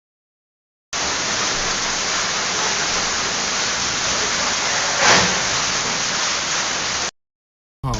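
Heavy rain falling during a hailstorm, a steady even noise with one brief louder moment about five seconds in. It starts abruptly about a second in and cuts off suddenly about seven seconds in.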